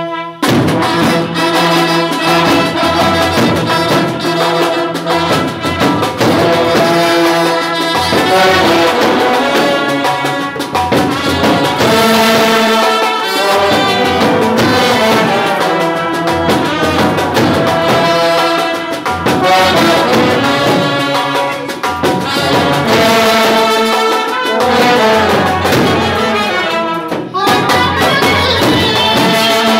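Indian brass band playing together: trumpets and euphoniums carry a melody in held notes over a steady snare-drum beat, with a brief break near the end.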